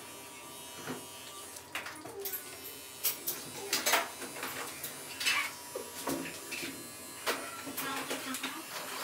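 Corded electric dog clipper running steadily while shaving a dog's coat, with short sharp noises now and then.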